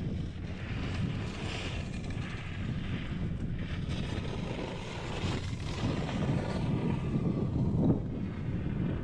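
Wind buffeting the microphone during a chairlift ride, a steady low rumble with a hiss that swells and fades.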